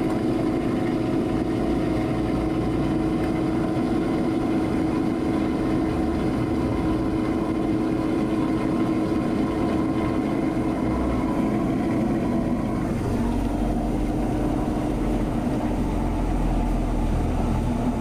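Corn-grinding mill running steadily with a constant hum and a strong steady tone; about two-thirds of the way through the sound thins a little.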